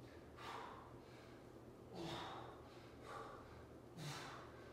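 A man breathing hard while exercising: four sharp, forceful exhales, a second or so apart, over a low steady hum.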